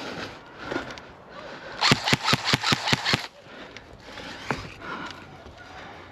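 Airsoft gun firing a rapid string of about eight shots, roughly six a second, lasting a little over a second. A single sharp snap follows about a second later.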